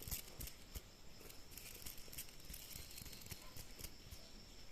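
Faint scattered clicks and light rustling from small parts or tools being handled; no engine running.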